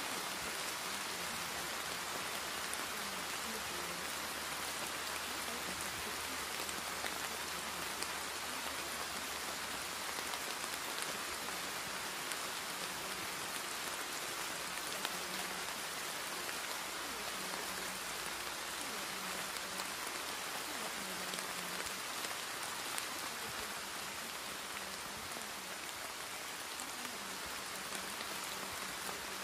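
Steady rain falling on a surface: an even hiss with scattered drop ticks.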